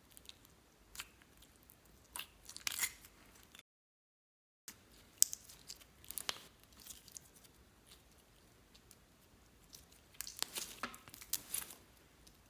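Clear slime being squeezed and stretched by hand, giving clusters of small crackles and pops. About four seconds in, the sound drops out completely for a second.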